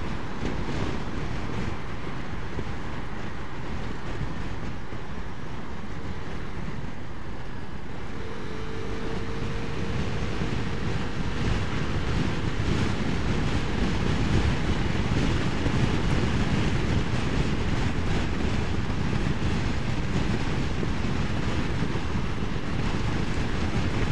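Wind rushing over the microphone of a moving Vespa scooter, over the scooter's engine and tyre noise; the rush grows louder about ten seconds in.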